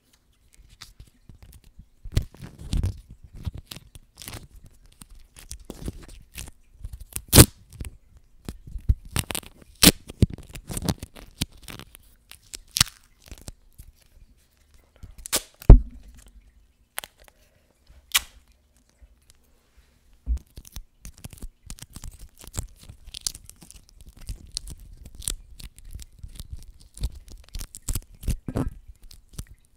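Adhesive tape being peeled off its roll and handled close to a microphone: irregular crackling rips, with a few loud, sharp snaps.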